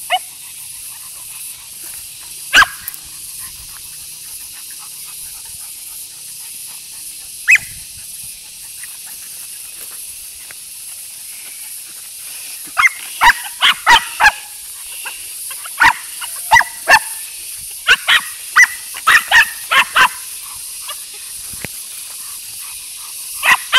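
Dog barking: a single sharp bark about two and a half seconds in and another near eight seconds, then a quick run of short barks from about thirteen to twenty seconds in.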